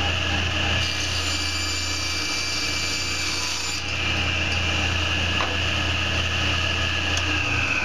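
Table saw with a 10-inch blade running with a steady high whine and motor hum, ripping a wooden board along the fence; the cutting sound rides over the whine from about one second in to about four seconds in. Near the end the motor hum stops and the whine begins to drop in pitch as the blade spins down.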